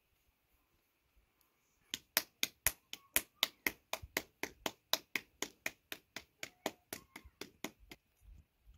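A rapid, even series of sharp taps, about four a second, starting about two seconds in and stopping about two-thirds of a second before the end.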